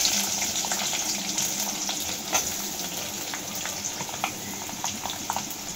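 Sliced onions sizzling in hot oil in a kadhai just after going in, with a few light clicks of a steel ladle against the pan. The sizzle is loudest at first and slowly eases off.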